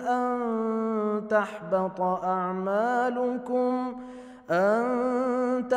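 A man reciting the Quran in the melodic tajweed style, holding long drawn-out notes with wavering ornaments. He pauses briefly for breath about four seconds in, then starts a new phrase.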